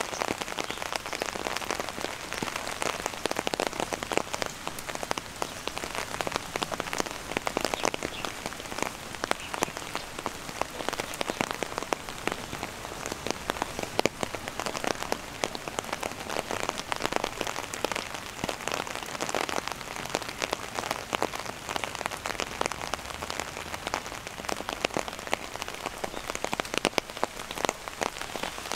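Steady rain falling, with the sharp ticks of many individual drops landing close by.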